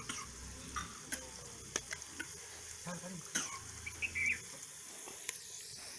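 Sliced onions and green chillies sizzling in hot oil in a pot. Over it come light clicks and scrapes of a steel ladle mixing raw chicken pieces with turmeric and ginger-garlic paste in a steel bowl.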